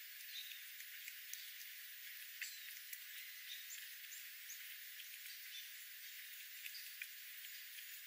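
Birds foraging on gravel: scattered light ticks of pecking at seed and a few brief, high chirps over a faint steady hiss.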